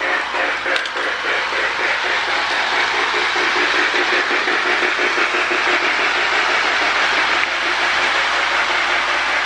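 Marx tinplate toy steam locomotive and a long train of loaded log dump cars running on three-rail track: a steady clattering rumble of wheels on the rails with the electric motor's steady hum.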